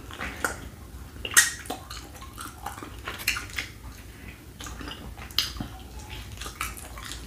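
Wet mouth sounds of eating saucy chicken wings: irregular smacks, clicks and sucking as sauce is licked off the fingers between chews.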